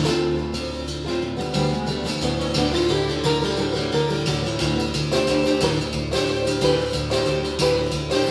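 Acoustic guitar played solo, a quick, even stream of plucked and strummed notes.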